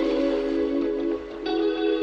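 Background music: held chords with a plucked-string, guitar-like sound, the chord changing about one and a half seconds in.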